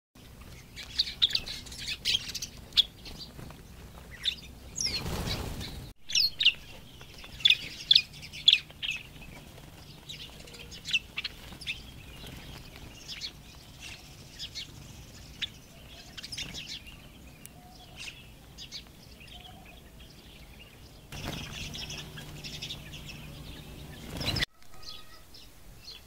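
Small birds chirping in many quick, short notes, some loud and sharp. A brief rustling burst comes about five seconds in, and a steadier rush of noise comes near the end.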